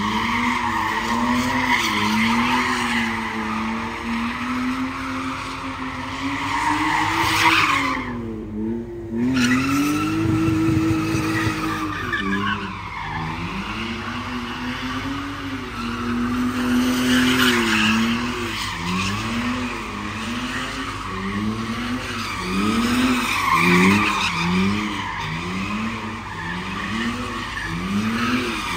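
A car drifting or doing donuts, its engine revving up and down over and over while the tyres squeal. The tyre screech breaks off briefly about 8 seconds in. In the last third the revs rise and fall in quick, regular pulses about once a second.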